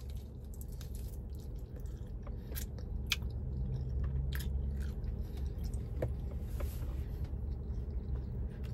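Person chewing and biting chicken wings close to the microphone, with scattered small clicks.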